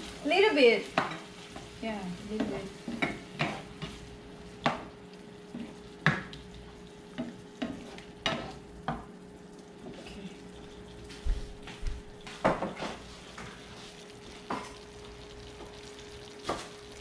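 A plastic spatula scraping and knocking around a nonstick frying pan in irregular strokes as pork and peppers are stir-fried, over a light sizzle.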